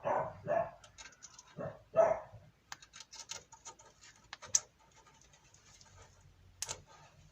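A dog barks a few times in the first two seconds. Then come light clicks and scrapes of hand work on a brake caliper as its guide pins are packed with grease.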